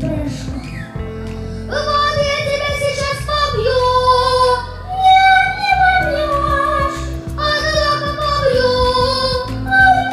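A young girl singing a melody into a microphone in held notes, with steady low accompaniment beneath.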